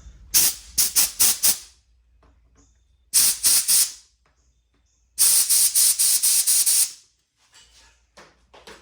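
Compressed air hissing in short blasts into the adjustment-screw ports of a Homelite HT17 hedge trimmer's carburetor, to clear out dirt. There are three groups of quick puffs, and the last group, a little over halfway through, is the longest.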